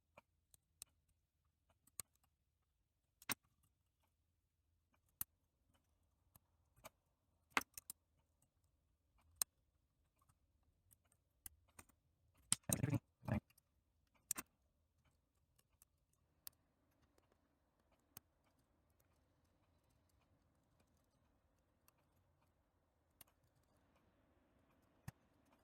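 Faint, scattered metallic clicks of lock picks working the pins of a Vachette pin-tumbler padlock, with a short burst of rapid clicking about halfway through.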